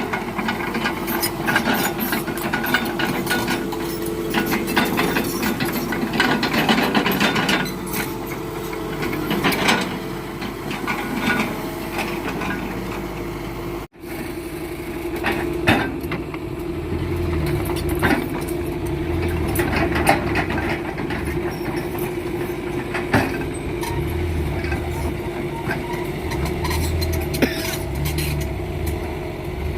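Heavy machinery's diesel engine running steadily, with repeated clanks and knocks. The sound breaks off abruptly about halfway through, then the engine carries on.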